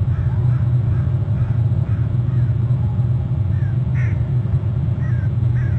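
Steady low rumble with faint, short bird calls falling in pitch, repeated about ten times at irregular spacing.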